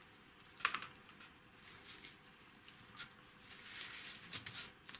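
Faint handling noise from the opened turn-and-slip indicator being lifted and tilted by hand: a few light clicks and rustles, the sharpest less than a second in and a small cluster near the end.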